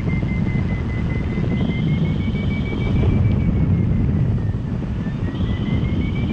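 Wind rushing over the microphone of a hang glider in flight, the loudest sound throughout. Over it a flight variometer beeps in quick succession, its pitch drifting up and down and rising highest twice, as it signals the glider climbing in lift.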